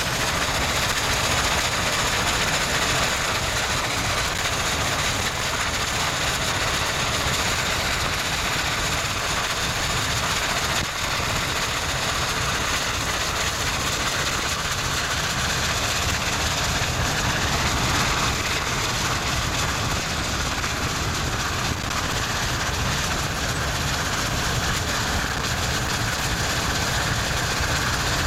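Union Pacific 844, a 4-8-4 Northern steam locomotive, running at speed, heard from a car pacing it, mixed with the car's steady road and wind noise.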